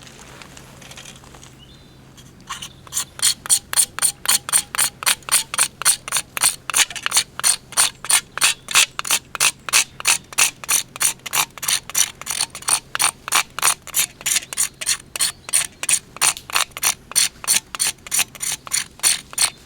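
A knife blade scraping a stick of fatwood, held straight on to the wood to raise fine dust and shavings for tinder. The strokes come rapidly and evenly, about three to four a second, starting a couple of seconds in.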